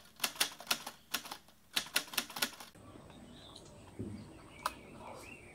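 Typewriter sound effect: a run of sharp key clicks in two quick groups over the first two and a half seconds. Then faint mouth sounds of a mouthful of rice and curry being eaten by hand.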